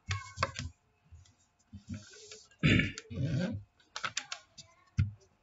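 Pen writing on a sheet of paper laid on a hard desk: scattered short clicks and knocks of the pen and hand on the surface, with a brief scratching stroke about two seconds in.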